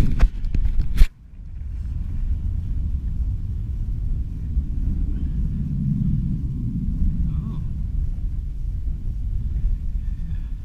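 Steady low rumble of wind buffeting the body-worn camera's microphone. It follows about a second of loud handling noise that ends in a sharp knock and cuts off suddenly.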